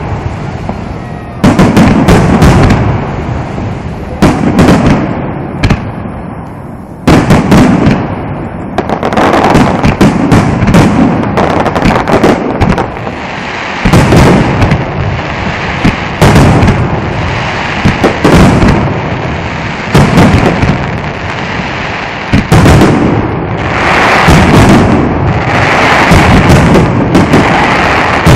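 Finale barrage of aerial firework shells by Nomura Fireworks, heard through a smartphone microphone: loud booms in quick succession, with crackling glitter between them that grows denser in the second half.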